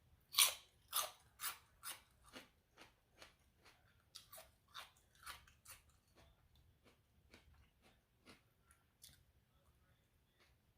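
Close-up chewing of crunchy raw vegetables: a run of sharp crunches about two a second, loudest in the first couple of seconds, then fading to softer, sparser chews.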